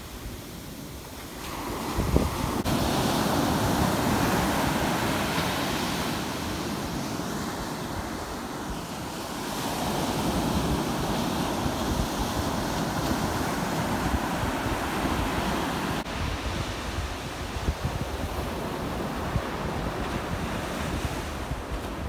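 Rough, storm-driven surf breaking and rushing up the sand, with wind buffeting the microphone. The wash swells about two seconds in and again around ten seconds.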